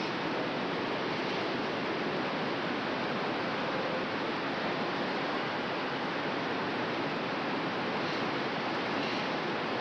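Steady, even rush of city street noise: traffic ambience with no distinct events.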